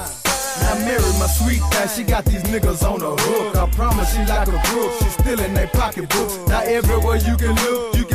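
Hip hop track with vocals over drums and a deep bass line.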